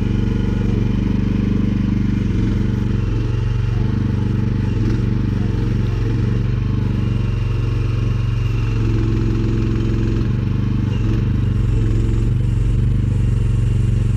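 Mini excavator's engine running steadily while the machine is worked, its pitch shifting slightly now and then as load comes on, with some light clatter.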